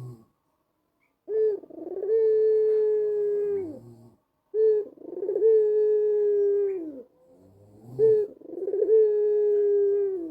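White ringneck (Barbary) dove cooing its song three times: each call a short opening note followed by a long held coo that drops in pitch as it ends.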